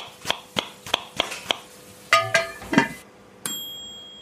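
Kitchen sound-effect sting: a knife chopping on a cutting board at about three strokes a second, then a few clinks, then a single bright bell ding that rings on and slowly fades.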